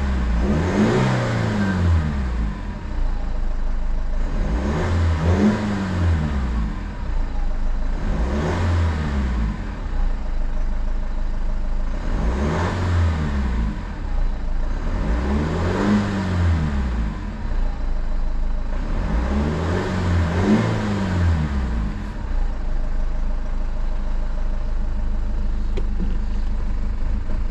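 BMW M47 2.0-litre four-cylinder turbodiesel idling unevenly, its revs swelling up and dropping back six times, about every four seconds, then settling to a steady idle near the end. The hunting idle is part of the rough running the owner is chasing, which the car logs as a boost-pressure sensor fault.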